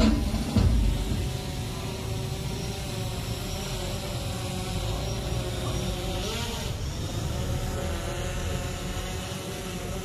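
Steady outdoor background hum of a standing crowd and distant traffic, with a single thump just under a second in.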